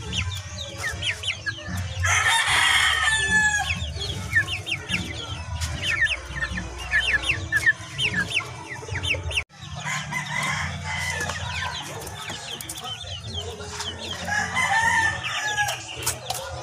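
A cage of white chickens calling, with a busy stream of short, falling peeps and clucks. A longer, louder call rises out of them about two seconds in and again near the end.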